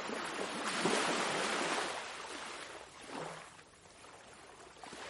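Ocean waves washing in: one wave swells over the first couple of seconds and ebbs away, then another starts to build near the end.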